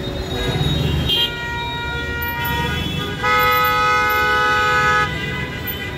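Congested city street traffic: a steady rumble of engines with vehicle horns honking. One horn sounds for about a second near the start, and a longer, louder horn blast runs from about three to five seconds in.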